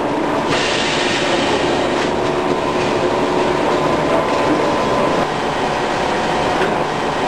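VC999 shrink tank running with a steady mechanical noise from its conveyor and machinery, a few faint steady tones in it. A brighter hiss joins about half a second in and carries on.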